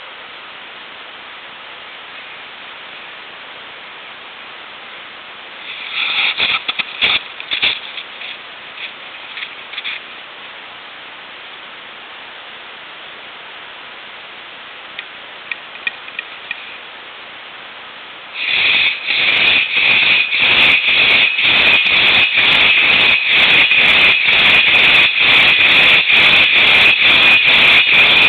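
Two-person crosscut saw cutting a log. After a steady hiss with a few short scrapes and knocks, the saw strokes start about two-thirds of the way in, rasping in a fast even rhythm of about two strokes a second and much louder.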